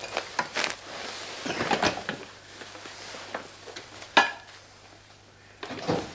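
Handling noises of a person sitting down in an armchair and working at a mixing desk: rustling and scattered clicks and knocks, with one sharp knock about four seconds in, over a faint low hum.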